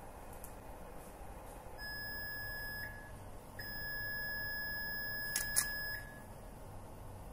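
Electronic beeper of a high-voltage test station sounding two steady beeps at one pitch, the first about a second long and the second about two and a half seconds, while the high-voltage and insulation test runs; a couple of sharp clicks come near the end of the second beep.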